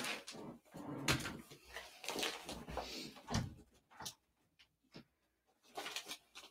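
Handling noises: rustling with a string of knocks and clicks as objects are picked up and moved, busy for the first three seconds or so, then a short lull and a few more clicks near the end.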